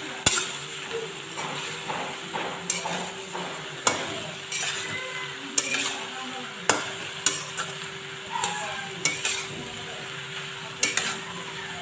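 A spatula stirring chopped taro in a kadai over a light frying sizzle, with irregular knocks and scrapes against the pan. A steady hum runs underneath.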